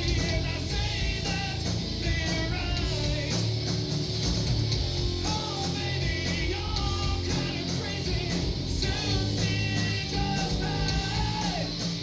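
Live rock band playing: a man singing over electric guitars and drums.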